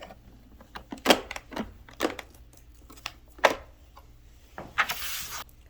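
Sharp plastic clicks and knocks, about five, from the Samsung Jet Bot+ robot vacuum's casing and dustbin being handled and opened, with a brief rustle near the end.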